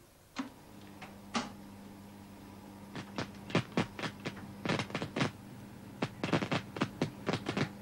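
A microwave oven switched on with a click, then its steady low hum, with a second click a second later. From about three seconds in, rapid sharp crackling snaps as a miniature model kitchen inside the oven burns.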